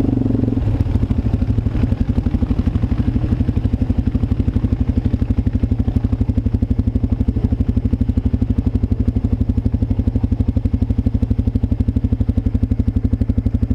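ATV engine idling steadily with an even, rapid pulse.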